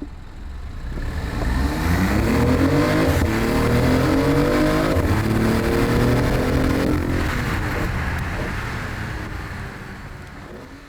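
BMW i8's 1.5-litre three-cylinder engine accelerating through its stock exhaust, with the artificial active sound removed. The note climbs, drops back and climbs again twice, as at two upshifts, then fades away over the last few seconds.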